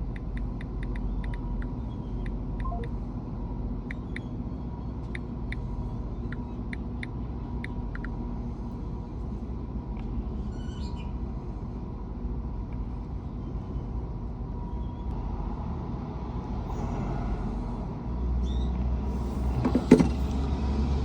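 Small metal clicks from a lock pick being worked in a Ford vehicle door lock, over a steady low rumble. The rumble grows louder near the end, with a sharp knock shortly before the end.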